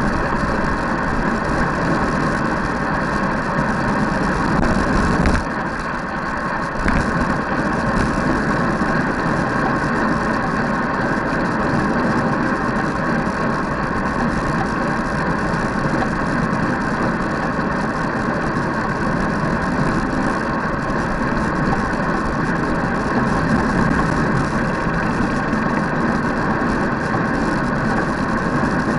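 Steady rush of wind and road noise on a bike-mounted action camera riding at speed in a group of road cyclists, with a brief drop in level and a couple of knocks about five to seven seconds in.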